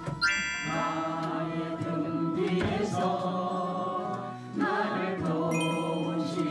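Slow music with long held sung notes, hymn-like, with a brief dip about four seconds in before a new phrase begins.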